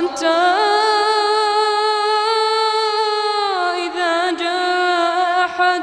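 A boy reciting the Quran in melodic tajwid style, drawing out one long held note that rises slightly, holds, then falls a little past the middle into a short wavering ornament.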